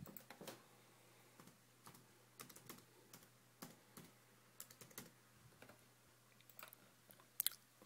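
Faint computer keyboard typing and mouse clicks: scattered, irregular keystroke clicks, with a louder pair of clicks near the end.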